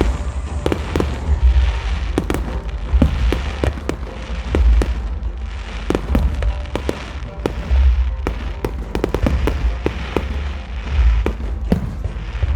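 Fireworks going off: many sharp bangs and crackles in quick, irregular succession over a low rumble.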